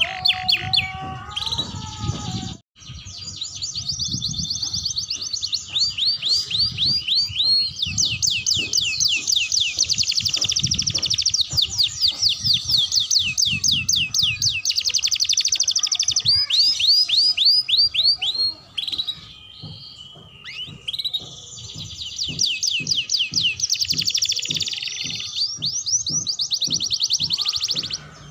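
A young domestic canary singing as it practises its song: long, fast trills of repeated sweeping high notes. There is a brief break early on and a longer pause about two-thirds of the way through.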